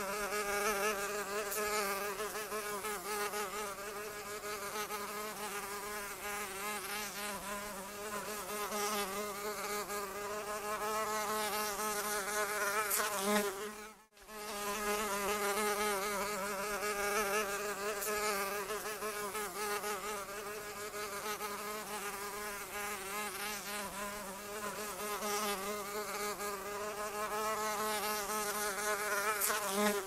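Housefly buzzing continuously, a steady drone with a slightly wavering pitch that cuts out for a moment about halfway through and then starts again.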